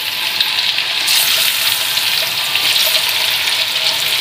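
Blocks of tofu frying in shallow oil in a wok: a steady sizzling hiss.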